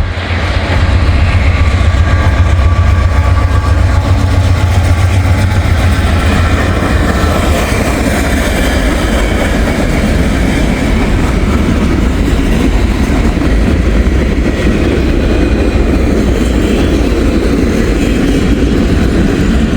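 Freight train passing close by: a heavy low drone for the first several seconds gives way to the steady rumble and clatter of freight cars rolling over the rails.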